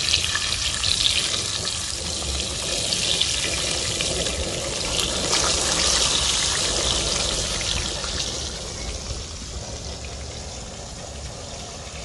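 Herring fillets sizzling and crackling in hot oil in a frying pan as they are turned with wooden tongs. The sizzle is loudest about halfway through and dies down over the last few seconds.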